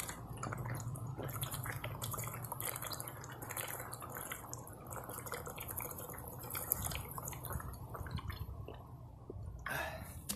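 A person chugging water straight from a plastic water bottle: continuous gulping and swallowing with many small wet clicks. A short, louder burst of sound comes near the end.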